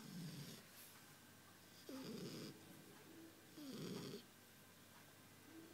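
A nine-week-old Shar Pei puppy snoring softly: three rattly snores, each about half a second long and spaced nearly two seconds apart, with a breathy hiss.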